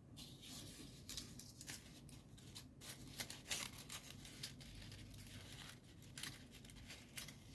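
Folded paper origami units rustling and crinkling faintly as they are handled and slotted together, in short scattered crackles.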